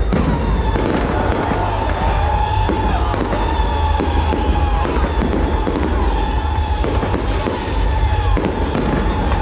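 Fireworks display: repeated bangs and crackles from the salute shells, with music playing under them.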